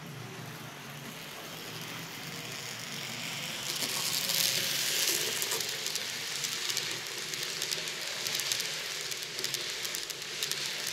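N-scale model train, a BR 17 steam locomotive with its coaches, running past on the track: a motor-and-wheel hiss that grows louder from about four seconds in as the train nears, with rapid irregular clicking of wheels on the rails. The locomotive is still running jerkily after cleaning, which the owner thinks means the motor needs taking apart.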